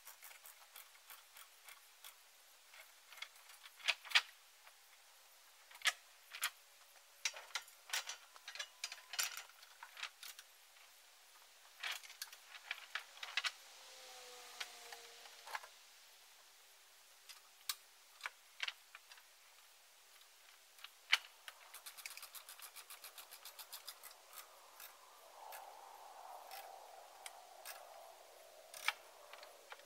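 Scattered light metallic clinks and clanks as a trailer's fold-up metal loading ramps are raised and secured, with a short falling squeak about halfway through.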